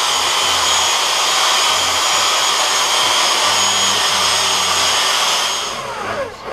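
Handheld electric power tool running steadily as it is worked along a wooden board: a loud whine with high steady tones over a hiss, winding down about six seconds in.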